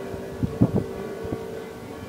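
A steady droning tone with a few dull, low thumps of distant fireworks going off.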